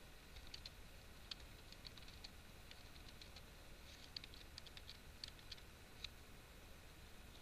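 Faint computer keyboard typing: scattered, irregular keystroke clicks, some in quick runs of a few keys.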